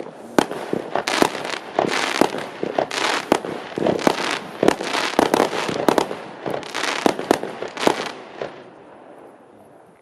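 A consumer fireworks cake firing rapid bangs and crackling shots in quick succession. The shots are dense until about eight seconds in, then die away.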